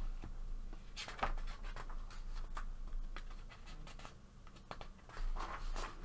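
Paper rustling and light taps as a paperback coloring book is handled on a wooden table, with a few short clicks about a second in and a louder swish of a page being turned near the end.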